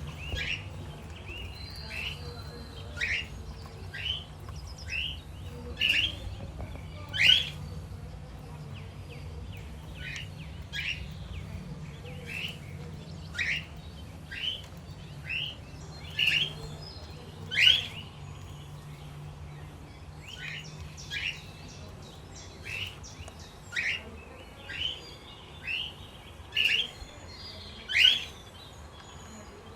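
Pet cockatiel and budgies chirping: short, sharp chirps, one about every second, some much louder than others, over a steady low hum.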